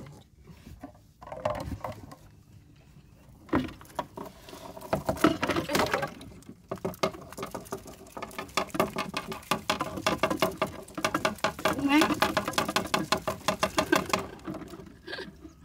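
Folding net crab trap hauled out of the water into a boat, with a quick, dense run of rattling clicks from the netting and frame and water pattering off it. The rattle builds a few seconds in and stops shortly before the end.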